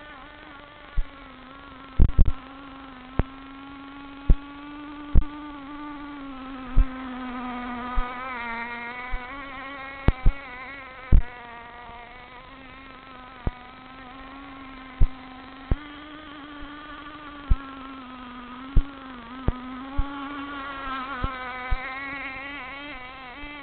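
K&B 3.5 cc model outboard engine running at speed on an RC boat, a high buzzing drone whose pitch wavers and dips briefly a couple of times. Sharp clicks, louder than the engine, land every second or two.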